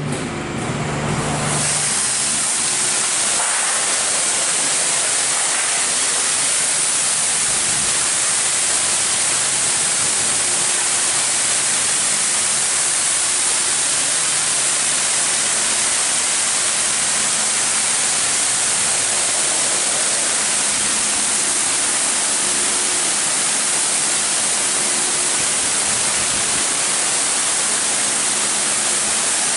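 High-pressure water jets of a Christ Genius Vitesse rollover car wash spraying a car, a steady loud hiss that starts about a second and a half in, with a faint machine hum underneath.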